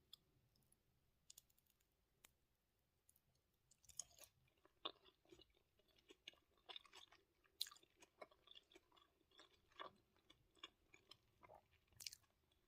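Faint close-up chewing with small crunches and mouth clicks: scattered for the first few seconds, then a steady run of crunchy bites from about four seconds in.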